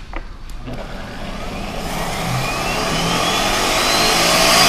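High-powered countertop blender switched on and ramping up through its speeds, blending a liquid vinaigrette base: the motor whine rises steadily in pitch and the sound grows louder.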